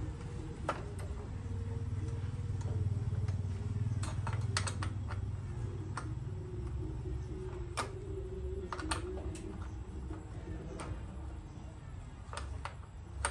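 Scattered metallic clicks and taps from hands working the blade guard and arbor of a miter saw while a cut-off wheel is being fitted, over a steady low hum.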